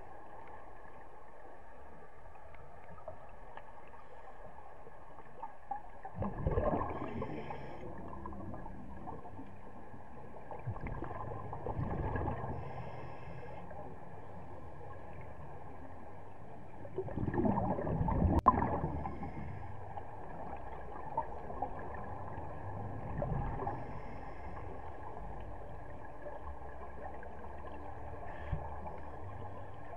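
Scuba exhalation bubbles heard underwater, swelling into a muffled gurgle four times, about every five or six seconds, the loudest around two-thirds of the way through, over a steady low hum.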